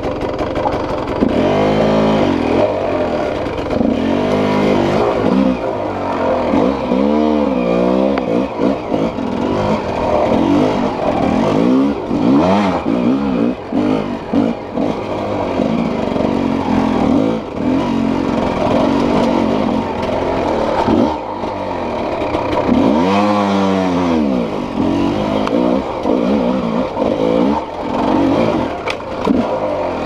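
Enduro dirt bike engine running under load, the revs rising and falling again and again as the throttle is worked over rough trail.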